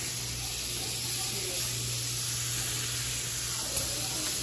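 Seasoned redfish fillets sizzling in hot butter in a cast iron skillet, a steady frying hiss, with a steady low hum underneath.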